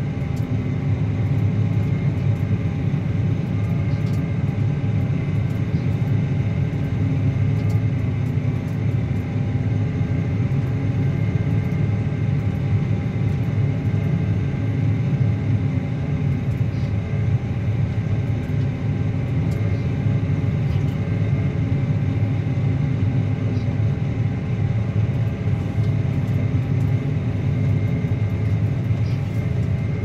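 Claas Axion 850 tractor's six-cylinder diesel engine running steadily under load while it pulls a Kuhn Varimaster reversible plough through the soil.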